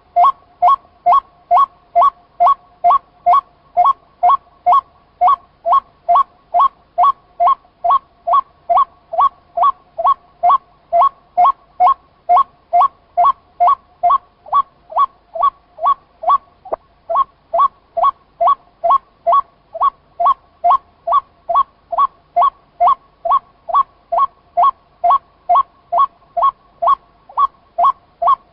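White-breasted waterhen calling: a steady, unbroken series of short two-pitched notes, about two a second.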